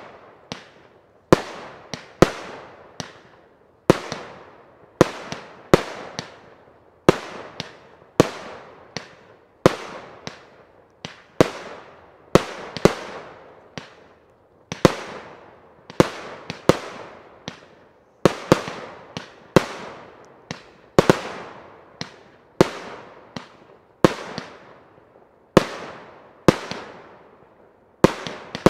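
Fireworks display fired from firework batteries: aerial bursts go off one after another, about one bang a second, each trailing off before the next.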